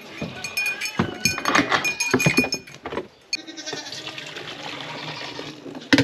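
Goats bleating, with a few knocks, over the first half. Then comes a steady rushing hiss of milk being poured from a steel pail into a stainless steel milk can.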